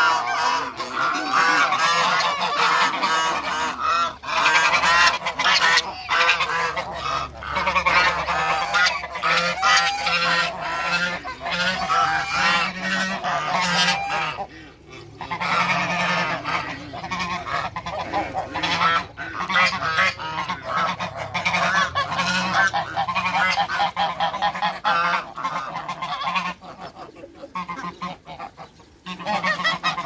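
A flock of domestic African and Toulouse geese honking and calling over one another almost without pause, with a brief lull about halfway through and the calling thinning out near the end.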